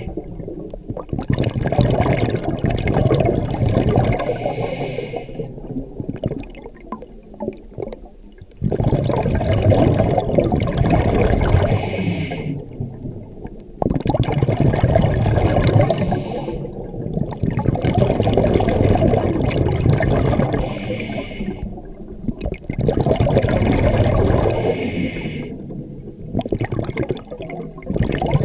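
Scuba diver breathing through a regulator underwater: a short hiss on each inhale, then a long rush and gurgle of exhaled bubbles, about five breaths in all.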